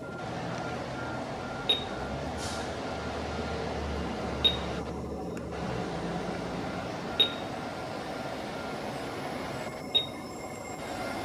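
Queensland Rail New Generation Rollingstock electric train approaching the platform, its wheels and motors making a steady rumble. A short, sharp high chirp cuts through four times, about three seconds apart.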